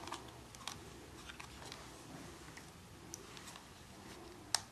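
Quiet room with a few faint ticks and clicks, and one sharper click near the end.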